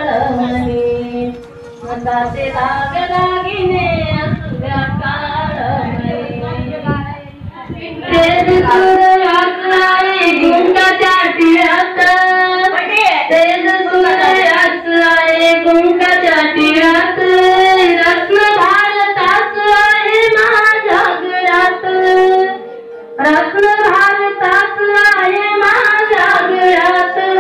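Young girls singing a song together, with regular hand claps keeping time from about eight seconds in.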